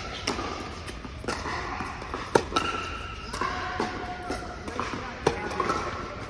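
Tennis rally on an indoor hard court: tennis balls popping off racquets and bouncing on the court, about one sharp hit a second, the loudest about two and a half and five seconds in.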